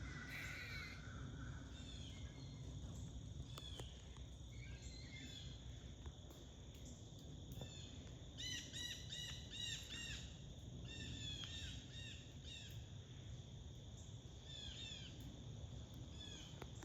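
Squirrels giving alarm barks: short chirping calls, some single and some in quick runs of about three or four a second. This is their warning call when a predator is about.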